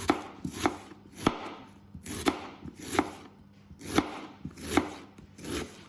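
Kitchen knife slicing a white onion thinly on a chopping board: about eight separate cuts, each ending in a sharp knock of the blade on the board, at an uneven pace of roughly one cut every three quarters of a second.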